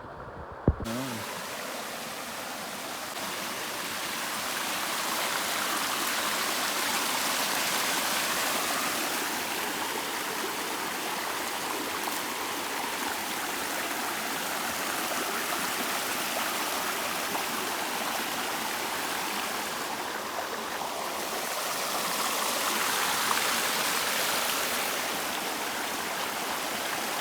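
Stream water rushing steadily, swelling and easing a little, after a sharp click just under a second in.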